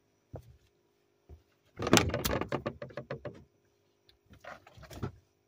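A quick run of clattering knocks and rattles, gear being handled in a boat, starting about two seconds in and lasting over a second, then a few softer knocks near the end. Under them is a faint steady hum.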